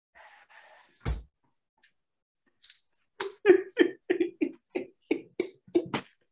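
A man laughing hard in a rapid string of short 'ha' bursts, about three or four a second, starting about three seconds in. A single sharp thump comes about a second in.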